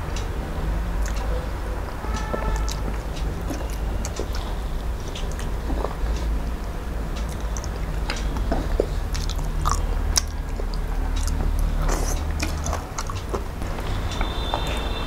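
Close-miked chewing of hand-eaten mouthfuls of rice with curry and spinach saag: wet mouth smacks and sharp clicks scattered throughout, over a steady low rumble.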